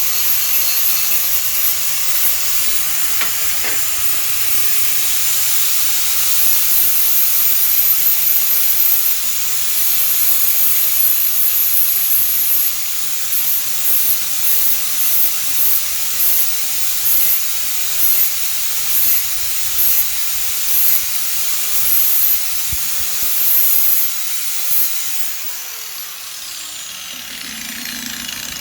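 Power grinder sharpening a steel lawn mower blade: a steady high hiss of metal being ground. From about halfway it comes in quick repeated passes, roughly one and a half a second. Near the end the grinder is switched off and winds down.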